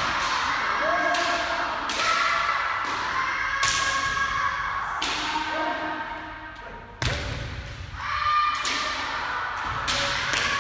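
Kendo sparring: bamboo shinai clacking together and striking armour, and bare feet stamping on the hall floor, a dozen or so sharp hits at irregular moments. Long drawn-out kiai shouts ring out between the strikes, and the hits echo in the large hall.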